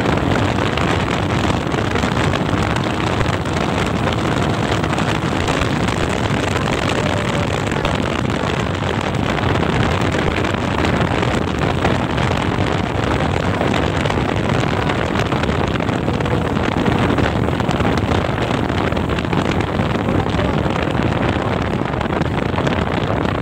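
DTM 150 dirt bike engine running at a steady pace while the bike rides along a road, mixed with wind rumbling on the microphone.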